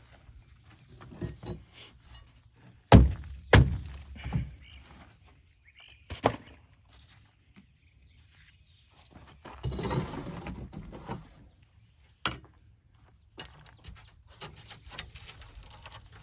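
Pieces of rotted plywood flooring being broken up and tossed into a trash can: a few heavy thuds about three to four seconds in, another at about six seconds, a longer rough scraping, crumbling noise around ten seconds, and one more knock at about twelve seconds.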